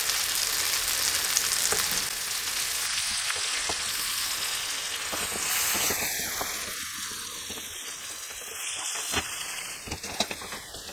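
Chicken chunks sizzling in curry masala and melting butter in a pan on high heat while being stirred, with a few light knocks of the utensil against the pan near the end.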